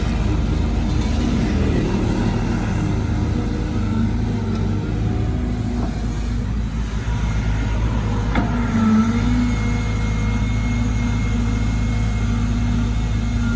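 Caterpillar 313GC excavator's diesel engine running steadily while it digs, with a single sharp knock about eight seconds in and a thin high whine for a few seconds near the end.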